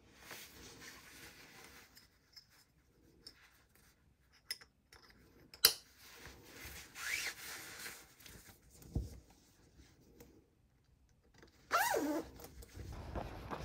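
Clothing rustling as running clothes are pulled on and adjusted, with a zipper on a fleece jacket run twice, the second time louder near the end. A single sharp click stands out a little before halfway.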